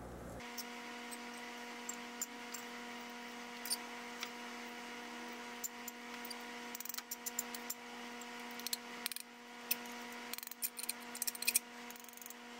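Small metal spatula scraping and tapping on a fused quartz dish as palladium sponge powder is pushed into a ceramic crucible: light scattered clicks and scrapes, busier in the second half. A steady hum of a few tones runs underneath.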